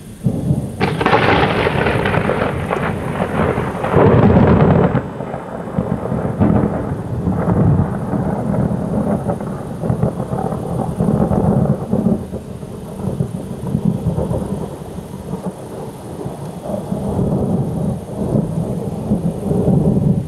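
Thunder: a sudden crackling clap about a second in, loudest around four seconds in, then a long rolling rumble that swells and fades through the rest.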